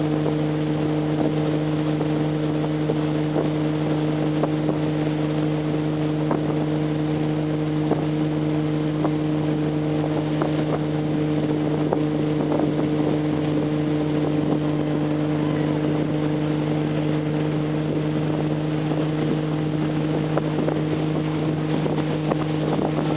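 Motorboat engine running steadily at towing speed, a constant drone that holds one pitch, over the rush of water in its wake.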